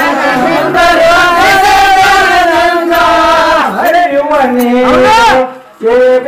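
Men singing a Kannada Muharram folk song (Mohram pada) together in a loud chant-like chorus, holding long notes, with a brief pause about five and a half seconds in.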